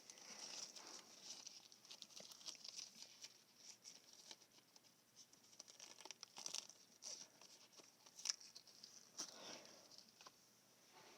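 Near silence: faint rustling and a few soft clicks over a steady faint high hiss, with one sharper click about eight seconds in.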